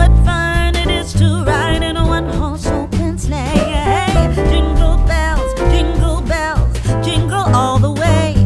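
A song playing as background music: a singing voice with vibrato over instruments and a strong bass line.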